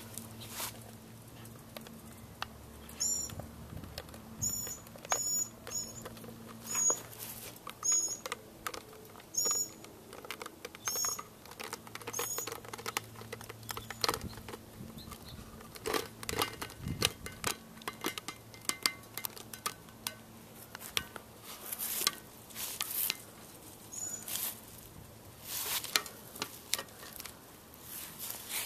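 Irregular crackling, clicking and small squeaks as sun-softened, jelly-like adhesive peels apart while the glass safety lens is prised up off a color CRT face.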